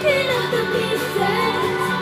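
A pop song with a female voice singing a wavering melody over steady, sustained backing chords.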